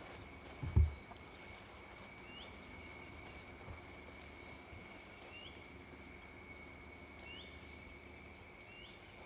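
Rainforest insects droning steadily at two high pitches, with a bird repeating a short rising chirp every second or two. A single dull thump sounds about a second in.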